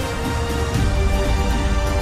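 Background music with a steady bass beat and sustained notes.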